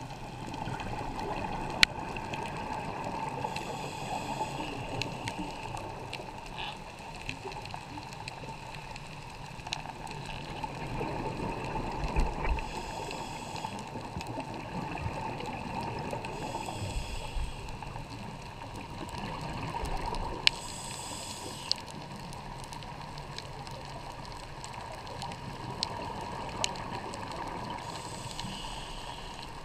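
Underwater sound of a scuba diver breathing through his regulator: a hiss and a burst of exhaled bubbles every few seconds over a steady hum, with scattered sharp clicks.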